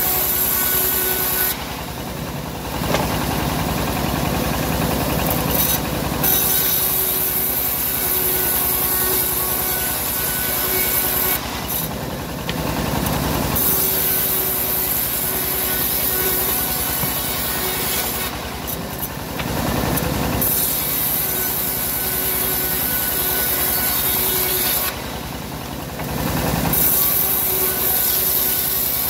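Homemade bandsaw mill's blade ripping a teak log into planks: a steady rasping hiss of the blade in the wood, which breaks off briefly four times.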